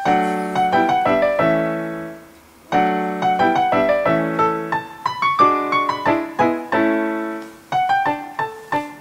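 Background piano music: struck chords and melody notes that ring and fade, a short lull about two seconds in, then quicker repeated notes near the end.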